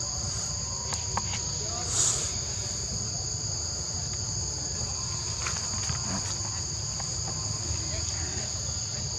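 Steady, high-pitched drone of a forest insect chorus, holding two constant pitches, over a low rumble. A few faint clicks are heard, and the chorus swells briefly about two seconds in.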